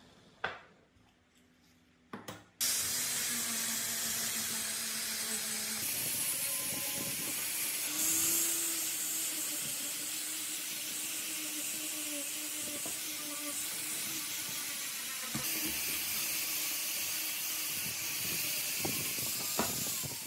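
Angle grinder with an abrasive disc grinding a metal sleeve held in pliers: a couple of sharp clicks, then the grinder starts about two and a half seconds in and runs steadily, its tone shifting a few times as the disc bears on the metal.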